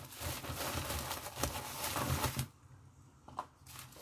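Plastic packaging rustling and crinkling as it is handled and pulled open, stopping abruptly about two and a half seconds in, followed by a couple of faint taps.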